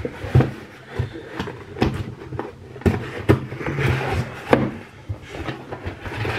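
Cardboard shipping box being handled and rummaged through: a string of sharp knocks and thumps mixed with short stretches of cardboard rustling and scraping.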